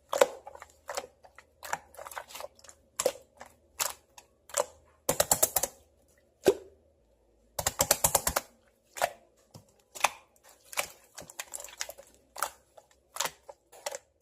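Clear glitter slime being pressed and poked by hand, giving sharp irregular clicks and pops, with two quick runs of rapid clicking about five and eight seconds in.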